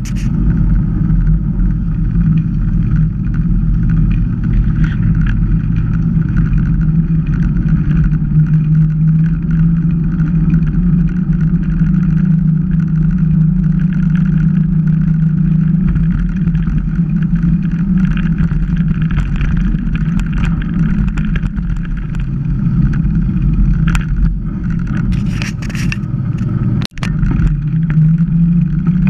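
Steady wind rush and tyre rumble picked up by a bike-mounted camera's microphone as a mountain bike rolls along an asphalt road. The sound cuts out for an instant a couple of seconds before the end.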